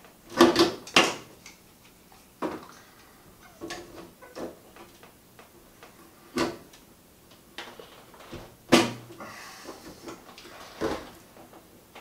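Pliers clanking and knocking against a corroded hose fitting on a washing machine's cold-water valve as it is worked loose: irregular metal knocks, a loud cluster just under a second in and another sharp one near nine seconds.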